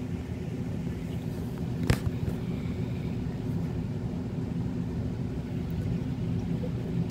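Steady low road and engine rumble inside a moving car's cabin, with one brief knock about two seconds in.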